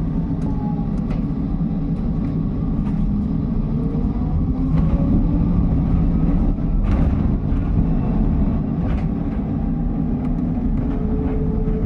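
Cabin ride noise of a Solaris Urbino 12 electric city bus: a steady low rumble, with a faint whine from the electric drive that slides up and down in pitch as the bus speeds up and slows, and scattered short rattles and clicks.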